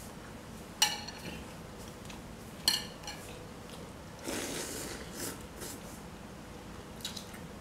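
Eating sounds: a spoon clinks twice against a glass bowl, then a short slurp of noodles about four seconds in, and a few light clinks near the end.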